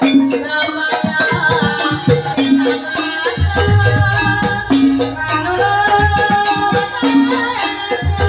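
Live Banyumasan gamelan accompaniment for an ebeg trance dance: struck bronze metallophones play a repeating melody over drum strokes, with high jingling percussion keeping time. A low gong-like tone comes in about three and a half seconds in and holds.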